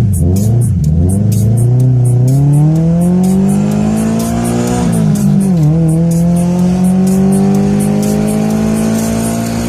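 Tofaş Doğan SX car engine pulling under load, its pitch rising steadily for about four seconds, dipping briefly about five seconds in, then holding a steady note.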